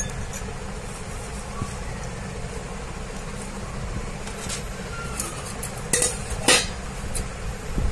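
Clicks and knocks of a drinking glass and kitchen vessels being handled, with a few sharp clicks in the second half, the loudest two about six seconds in. A steady low hum runs underneath.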